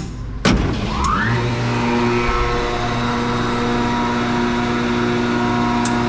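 Gardner Denver 75 hp rotary screw air compressor starting up: a loud clunk about half a second in, a short rising whine as the three-phase electric motor comes up to speed, then a steady running hum as it begins filling an empty air tank.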